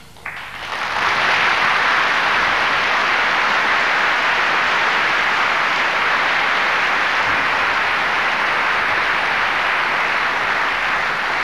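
Theatre audience applauding at the close of a musical number. The clapping starts suddenly, fills out within about a second, holds steady, and begins to ease off near the end.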